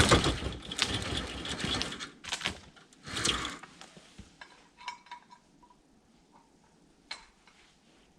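Steel winch cable and snatch block being handled: scuffing and rustling for the first few seconds, then a few scattered light metallic clinks.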